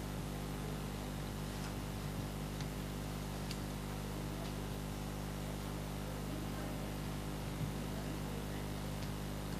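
Steady electrical mains hum and hiss of room tone, with a few faint ticks of pens and paper from students writing.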